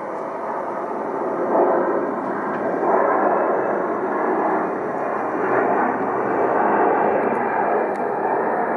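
An Embraer regional jet's twin GE CF34-8E turbofans on landing approach with gear down, passing low overhead: a steady rushing jet noise that grows louder about a second and a half in and stays loud.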